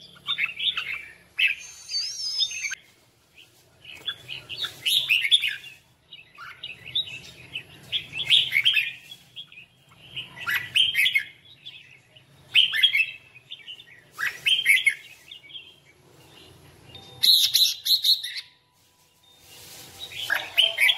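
Red-whiskered bulbul singing its competitive fighting song: short, quick warbling phrases of about a second each, repeated roughly every two seconds with brief pauses between.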